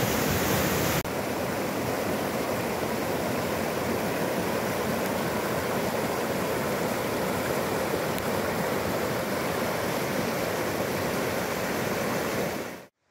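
The Río Pipo's flowing water rushing steadily. The sound steps down a little about a second in and fades out sharply just before the end.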